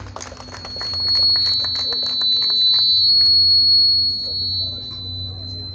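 Public-address microphone feedback: a loud, high-pitched squeal on one steady pitch, swelling about a second in and holding for several seconds, then dipping slightly in pitch and fading near the end. Scattered clapping dies away in the first second or two.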